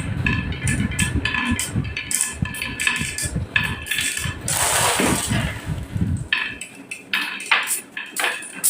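Many marbles clicking and clattering against each other and the track as they roll down a marble run, over a low rolling rumble that stops about six seconds in, after which only the scattered clicks remain.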